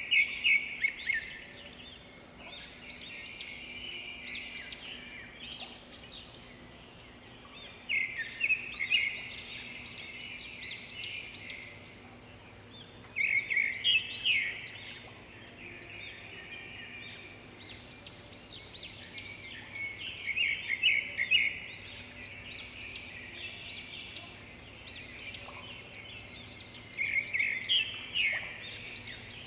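Small birds chirping in bursts of quick, high calls that come every six or seven seconds, with scattered single chirps between them over a faint steady hum.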